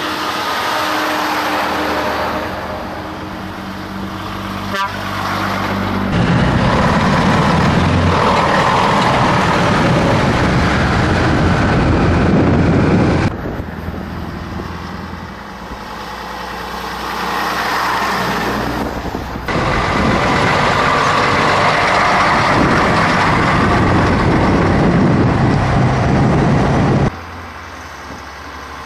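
Vintage diesel trucks, old Scanias among them, running past one after another on an asphalt road, engine and tyre noise rising and falling as each goes by. Two long loud stretches of dense noise cut in and out abruptly.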